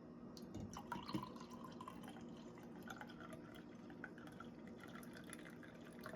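Faint background sound with scattered small clicks and ticks, and a few light knocks about a second in.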